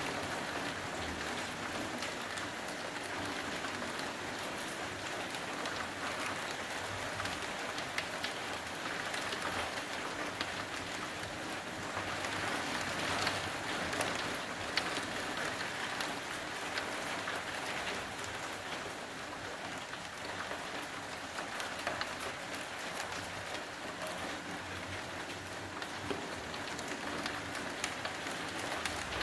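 Steady rain falling over a street and apartment blocks, an even hiss with scattered close drips and ticks.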